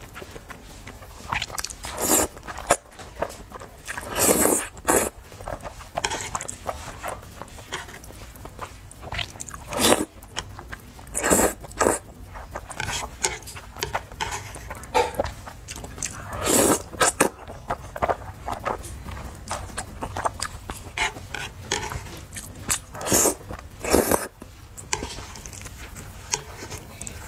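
A person eating saucy spicy noodles: wet chewing and mouth clicks, broken several times by loud, short slurps of noodles.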